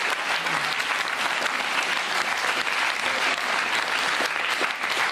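Studio audience applauding: many hands clapping at a steady level.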